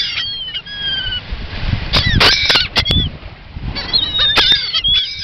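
A flock of gulls calling close by, with many short, high calls overlapping, some falling in pitch. A few sharp knocks come in between the calls.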